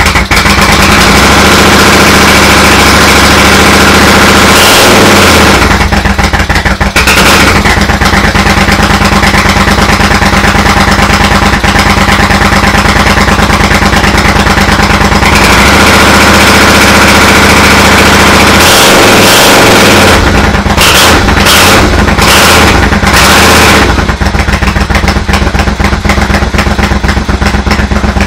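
Triumph America's parallel-twin engine running loud just after starting, revved a few times, through exhaust silencers newly fitted with baffles and wadding. It sounds a bit deeper but hardly any quieter.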